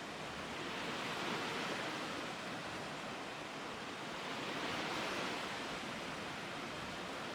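Lake waves washing onto the shore in a steady wash of water, swelling and easing gently a couple of times.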